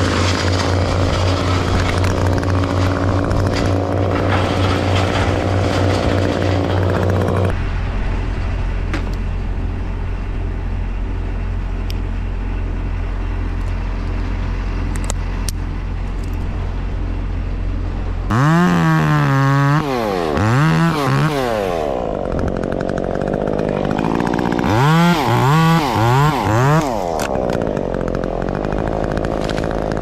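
Stihl top-handle chainsaw idling steadily, then revved in a few quick up-and-down blips about two-thirds of the way through and again in another short run of blips near the end.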